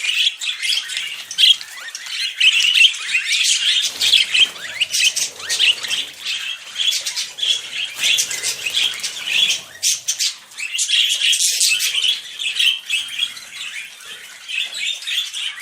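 Male budgerigar warbling and chattering without pause, a rapid run of short chirps and squawky notes, as budgies do during courtship or mating behaviour. Some low rustling joins in midway.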